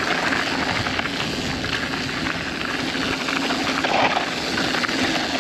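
Electric mountain bike rolling down a loose dirt singletrack: a steady rushing noise of tyres on dirt and gravel with scattered small knocks and rattles.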